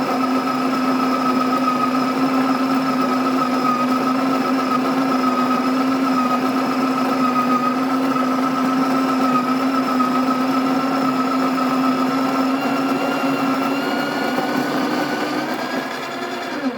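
Electric coffee grinder running loudly as it grinds a hopper-load of coffee beans, with a steady motor hum. Its pitch climbs a little in the last few seconds, and it cuts off right at the end.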